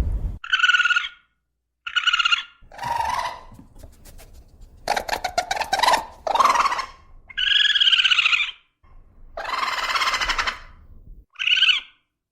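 An animal calling repeatedly, about nine separate calls, some clear pitched cries and some noisier, rasping ones.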